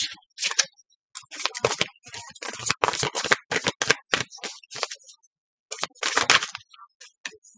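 A deck of tarot cards being shuffled by hand: a quick, irregular run of card clicks and slaps, with brief pauses between handfuls.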